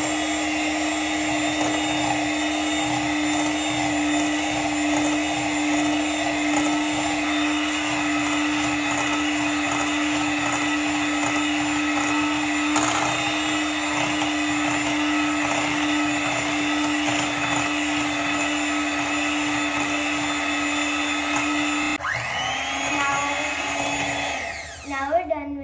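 Kenwood electric hand mixer running at a steady whine, its beaters whipping cream in a glass bowl as condensed milk is slowly added. Near the end the motor cuts out for a moment, starts up again, and then stops.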